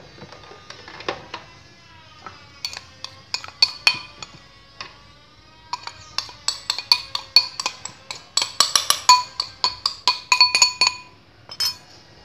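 A metal spoon clinking and tapping against a glass bowl as flour is scraped and shaken out of it. Scattered sharp ringing clinks come first, then a quick run of clinks, several a second, from about eight to eleven seconds in.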